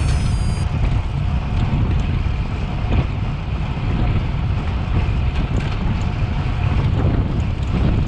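Wind buffeting the microphone of a cyclist riding at speed, a steady low rumble. A short electronic chime ends just after the start.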